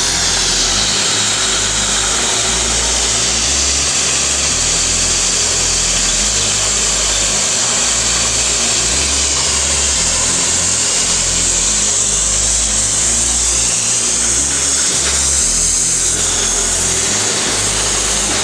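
Oxy-fuel cutting torch on a CG1-30-type motorised track cutting machine, its gas jet hissing steadily as it cuts through steel plate. Background music with a deep bass line plays over it.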